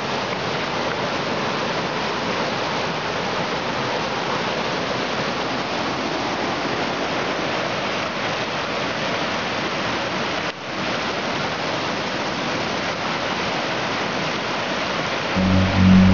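Rushing water of a mountain stream pouring over a small waterfall and cascading over stones and logs: a steady, even rush. It drops out for an instant about ten seconds in, and music comes in just before the end.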